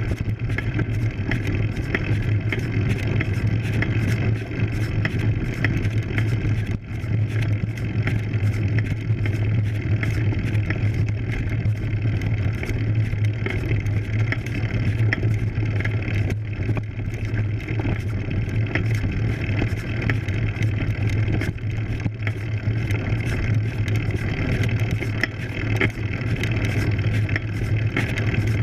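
Steady rumble and hiss of a road bike climbing on a dirt road, heard through a camera mounted on the bike: tyre noise on the gravel surface and wind on the microphone, over a constant low hum.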